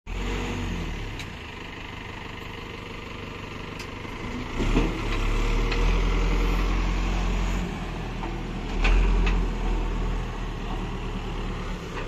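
JCB backhoe loader's diesel engine running steadily as the machine moves slowly along a dirt road. It revs up a little before halfway through and again briefly about three-quarters of the way through.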